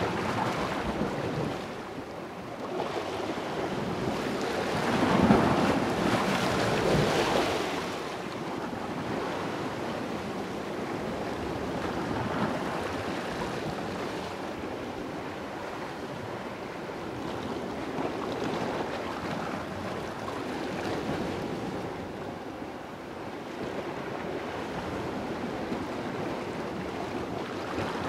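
Sea waves washing against the rocks at the foot of a cliff, a steady surf noise with a louder surge about five seconds in, and wind buffeting the microphone.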